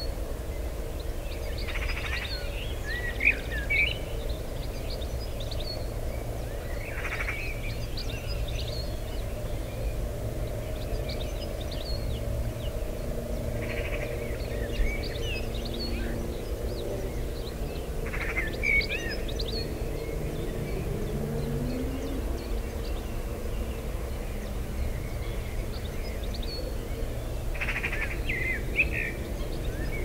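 A songbird singing short warbling phrases every few seconds over a steady low outdoor background rumble.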